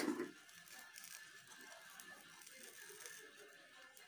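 A brief loud rattle at the very start, then the faint, steady crackling of a rice-flour crepe cooking in a non-stick frying pan.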